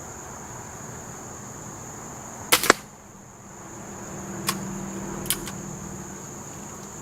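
Nitro piston (gas-ram) air pistol firing a .177 pellet once about two and a half seconds in: a sharp crack and a second sharp hit a split second later. Two fainter clicks follow. Crickets keep up a steady high chirring underneath.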